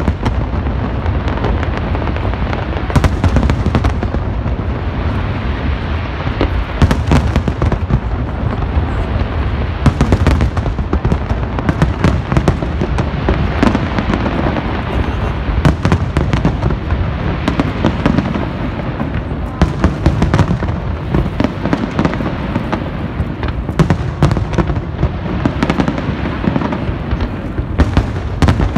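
Fireworks going off in a dense, continuous barrage: steady crackling packed with many sharp bangs at irregular intervals.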